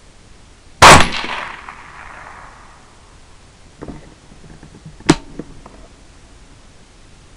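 A suppressed 6.8 SPC II rifle shot about a second in, its report trailing off over about a second. A few seconds later comes a short, sharp crack with a few lighter clicks around it.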